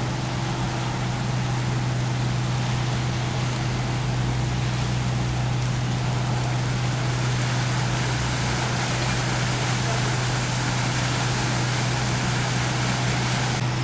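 Fire engine motor running at a steady low drone under a constant rushing hiss.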